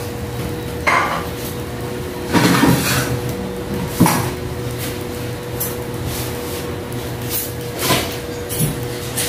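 Kitchen clatter: about five scattered knocks and clinks of cookware, the sharpest about four seconds in, over a steady hum.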